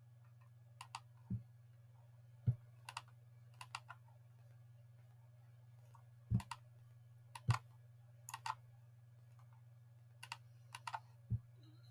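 Scattered clicks of a computer mouse and keyboard while navigating between windows, some in quick pairs, with a few duller knocks among them. A faint, steady low hum sits under them.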